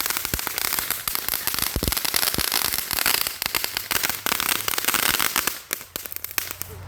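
Fireworks crackling: a dense, rapid run of sharp pops and cracks that thins out near the end.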